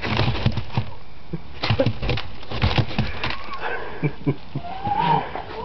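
Rat terrier puppy scrabbling and clattering in a corn bin as it chases a field mouse: irregular quick knocks and scrapes throughout, with a brief high cry near the end.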